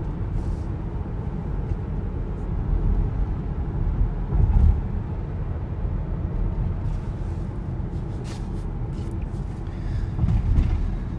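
Steady low road noise inside a moving car's cabin, picked up by a phone's microphone, swelling briefly about four and a half seconds in and again near the end.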